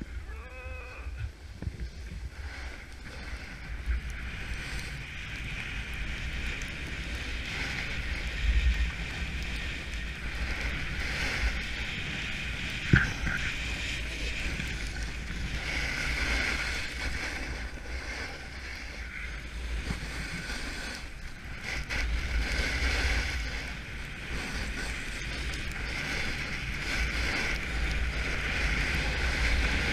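Snowboard sliding and carving down a snow slope, a steady scraping hiss of the board on the snow, with wind rumbling on the microphone. A single sharp knock about 13 seconds in.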